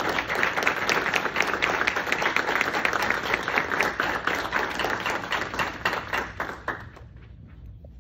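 Audience applauding: many people clapping together, which dies away about seven seconds in.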